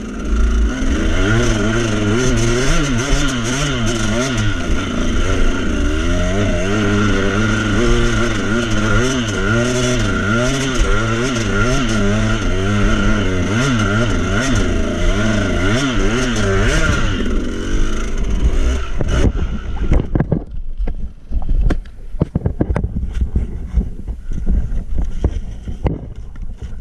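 KTM 200 EXC two-stroke single-cylinder dirt bike engine revving up and down hard under load on a steep climb, then dying about two-thirds of the way in. After that come irregular scrapes, knocks and clatter as the bike and rider go down on the leafy, rocky slope.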